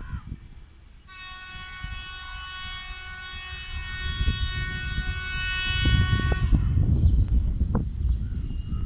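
Railway utility track vehicle sounding one long horn blast of about five and a half seconds, starting about a second in, over a low rumble from the vehicle that grows louder as it passes.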